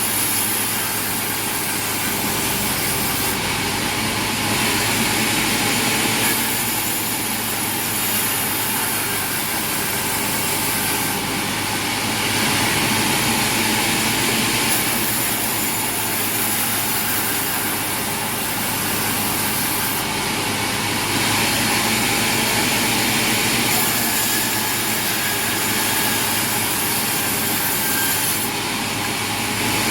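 Sawmill machinery running steadily, with stretches of louder high-pitched noise a few seconds long as the saw cuts through wood, several times over.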